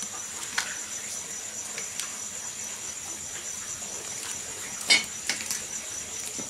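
Crickets trilling steadily while an open wood fire crackles with scattered sharp pops; a louder knock comes about five seconds in.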